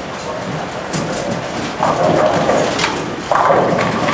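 Bowling alley din: balls rolling and pins clattering on the lanes, with several sharp knocks over a steady rumble.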